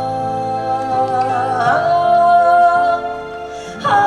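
A slow Korean ballad with a singer holding a long sung note over instrumental accompaniment. The melody shifts about two seconds in, then the music dips briefly before the voice comes back in near the end.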